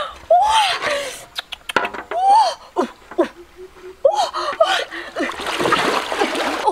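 River water splashing and churning as a person wades through it pushing a large metal basin, heaviest over the last second and a half. A few short vocal exclamations and gasps come between the splashes.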